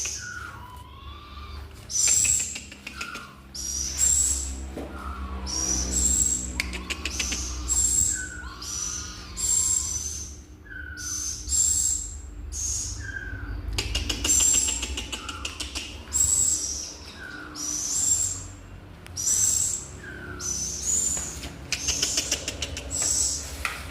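A songbird calling over and over: short, high, rattling calls about once a second, with softer falling whistles between them. The keeper takes it as the bird starting to imitate a song.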